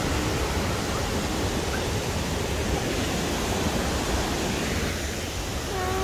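Waterfall's white water rushing down a steep rock slope, a steady, even rush of noise.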